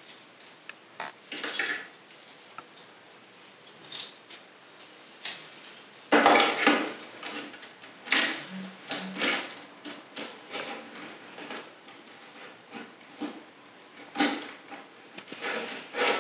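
Hard plastic parts of a Transformers Dark of the Moon Voyager Class Shockwave action figure clicking and scraping irregularly as hands fold the front wheels down and press the fender tabs into their holes.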